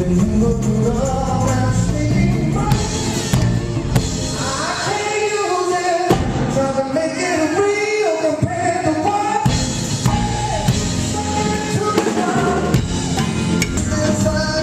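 Band music with a singing voice and drums. For a few seconds in the middle the bass and drums drop away, leaving the voice over lighter accompaniment, before the full band comes back in.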